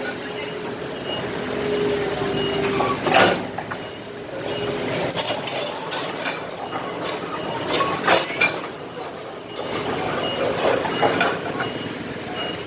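Excavator working broken concrete: the machine runs steadily, then there are heavy knocks and high metallic squeals from the bucket and boom scraping through the rubble. A faint reversing beeper sounds through it.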